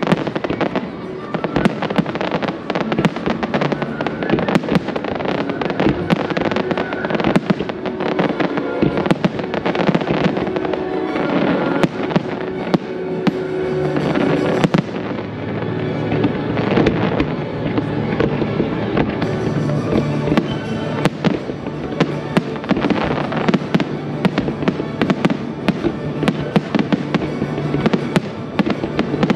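Aerial firework shells bursting one after another in quick succession, with crackling, over music.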